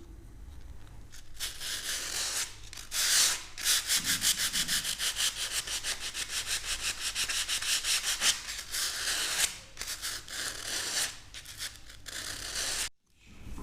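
A hand tool rubbing over plaster in quick, even back-and-forth strokes, about four or five a second, as the plaster is sanded or scraped smooth. The rubbing starts about a second in, runs steadily, and cuts off abruptly near the end.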